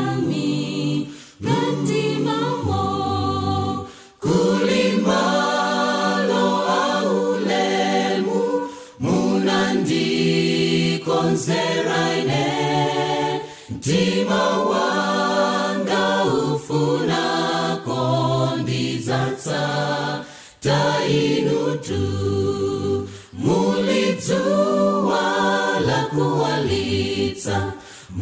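An a cappella vocal group sings a gospel hymn in English in close harmony over a sustained bass line, with no instruments. It goes in phrases, with short breath breaks between them.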